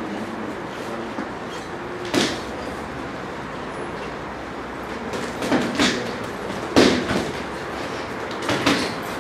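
Boxing gloves landing punches during sparring. A single smack comes about two seconds in, then several quick smacks, mostly in pairs, in the second half, over a steady background hiss.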